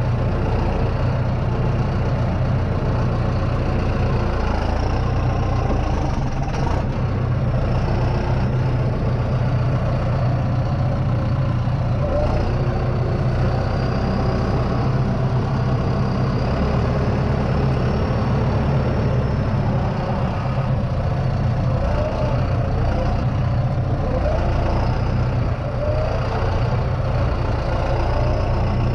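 Heavy engine running steadily at a constant speed, a low, even drone.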